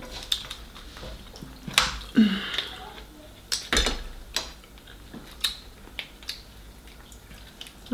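Close-miked eating of lobster tail: wet chewing and lip smacks with a dozen or so irregular sharp clicks.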